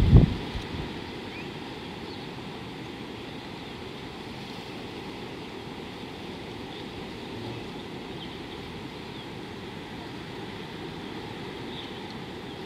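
Steady low outdoor rumble of wind on the microphone, with a loud thump right at the start and a few faint, short high chirps.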